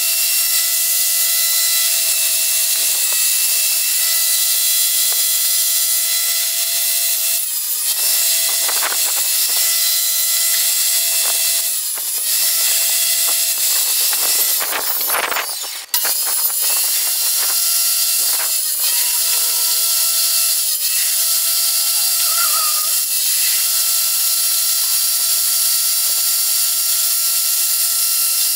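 Electric power saws cutting plywood: a steady high motor whine that dips briefly in pitch several times as the blade takes the load of the cut, with a louder stretch of cutting noise about halfway through.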